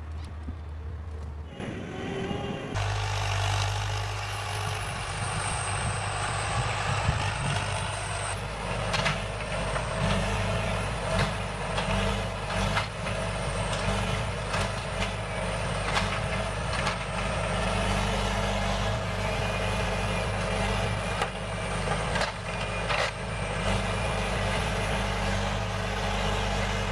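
Heavy forestry machine's engine running steadily, with a high wavering whine and scattered clanks and knocks. The sound sets in abruptly about three seconds in.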